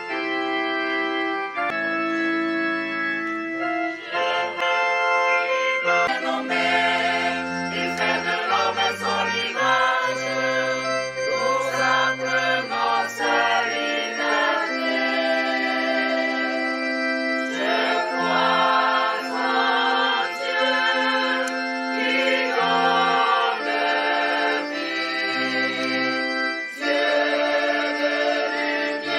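Church choir singing a hymn over electronic organ chords; the organ plays held chords alone at first, and the voices come in about six seconds in.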